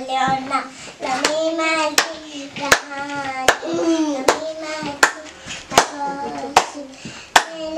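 A young girl singing a song while hand claps keep a steady beat, about one clap every three-quarters of a second.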